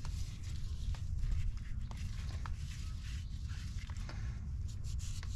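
Light clicks and taps of small metal pump parts handled by gloved hands at an opened diaphragm pump head, over a steady low rumble.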